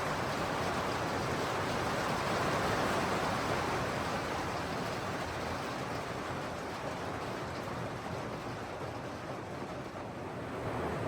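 Heavy rain pouring down, a steady, even noise.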